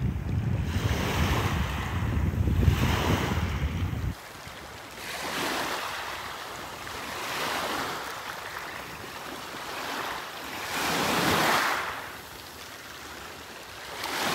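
Wind buffeting the microphone with a low rumble that cuts out about four seconds in. Sea waves then wash in as rushing swells about every two seconds.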